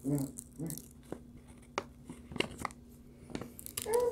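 Paper release cover being peeled back from a sticky diamond painting canvas, giving a series of short crackles and rustles.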